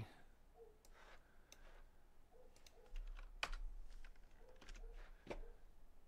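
Faint, scattered keyboard-typing clicks at an irregular pace, with a couple of sharper clicks standing out about three and a half and five seconds in.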